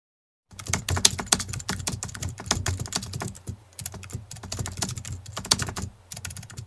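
Keyboard typing sound effect: rapid, irregular key clicks that start about half a second in.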